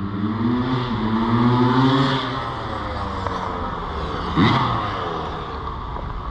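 Yamaha YZ125 two-stroke dirt bike engine running under throttle. Its pitch climbs over the first two seconds and then falls away, with a quick sharp rev about four seconds in.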